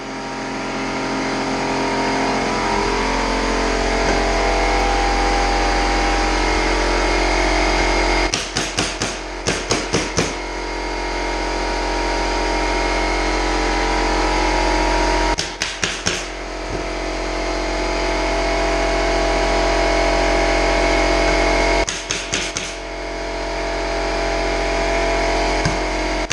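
Pneumatic staple gun firing staples into subfloor underlayment, in three quick runs of several shots each, about three or four a second. Under the runs a steady machine drone from the air compressor feeding the gun.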